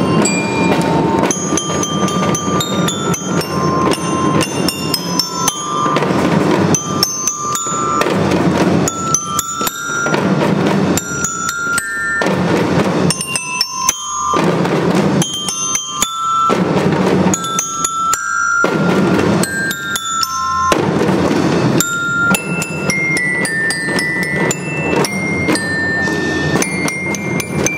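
Children's drum band playing: a glockenspiel-type bell lyra picks out a melody in short struck notes over a steady beat of drums.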